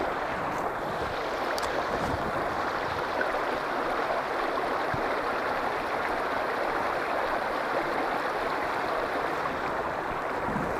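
River water flowing steadily over the streambed, an even rushing sound that holds at one level throughout.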